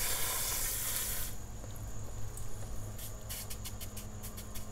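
Garden hose spray nozzle spraying water onto perlite in a bucket, a steady hiss that cuts off abruptly about a second in. A few faint clicks follow near the end.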